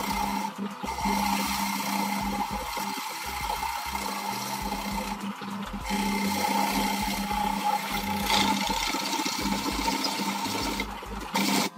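Parkside bench drill press running, its bit boring into a plywood board and throwing out chips, with a steady motor hum under the cutting noise. The cutting noise breaks off briefly a few times.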